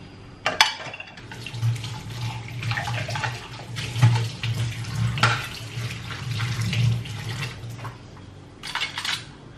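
Dishes being washed at a stainless-steel kitchen sink: tap water runs and splashes into the basin while cups and plates clink and clack against it, with sharp knocks about half a second in and again around four and five seconds.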